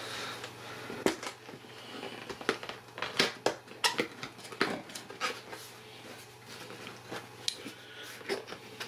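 A cardboard box being opened by hand: irregular clicks, scrapes and rustles of the flaps and the packaging inside.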